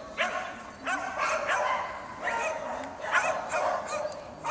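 A dog yipping and whining excitedly: a quick series of short, high calls that bend up and down in pitch, two or three a second.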